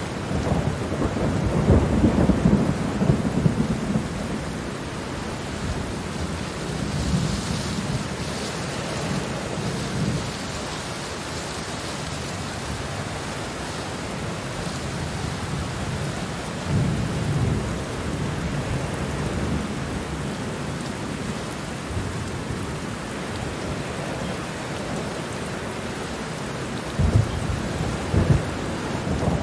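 Steady rain falling, with low rolls of thunder that swell up about a second in, again about halfway through, and near the end.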